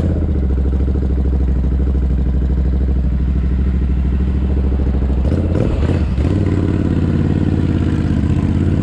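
Royal Enfield Interceptor 650's parallel-twin engine running through an aftermarket JVK exhaust, heard through a GoPro's built-in microphone. The note is steady at first; about five seconds in it changes and then climbs in pitch.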